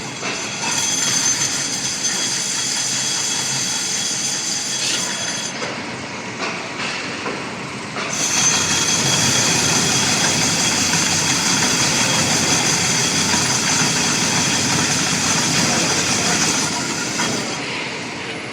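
Automatic CNC lathe machining steel roller pipes, a steady mechanical running noise with a high, steady whine over it. It eases off after about five seconds and comes back louder about two seconds later.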